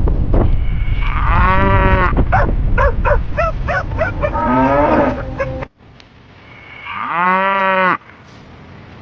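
A cow mooing again and again: a long moo, a quick run of short calls, another moo, then a last long moo near the end. A loud low rushing noise lies under the first half and cuts off abruptly about halfway through.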